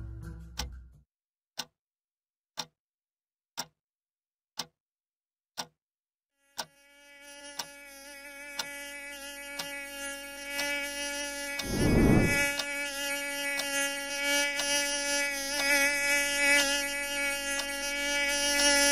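A twin-bell alarm clock ticking about once a second. After about six seconds a mosquito's high whine starts and grows louder over the ticking, with a brief burst of noise about halfway.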